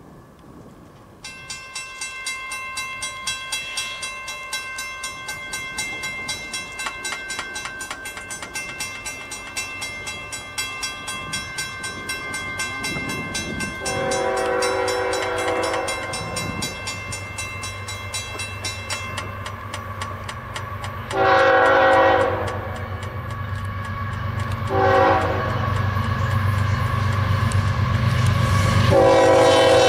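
Grade crossing bell ringing rapidly, stopping about two-thirds of the way through. A diesel freight locomotive horn then sounds the crossing signal, two long blasts, a short one and a long one starting near the end, over the growing rumble of the approaching train.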